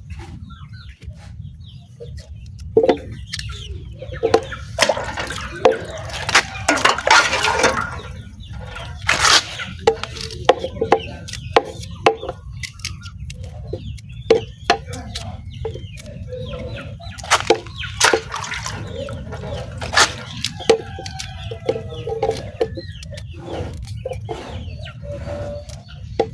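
Chickens clucking, with many short sharp knocks and bursts of scraping or rustling noise scattered throughout over a steady low hum.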